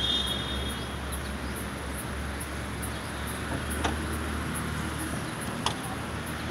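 Steady low vehicle hum under outdoor city background noise, with a brief high chirp at the start and two sharp clicks later on.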